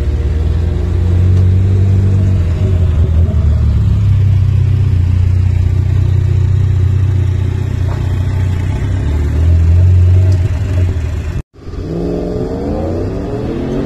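Audi R8's engine idling with a steady low rumble that swells briefly near ten seconds. After a sudden cut about eleven and a half seconds in, an engine revs, its pitch rising.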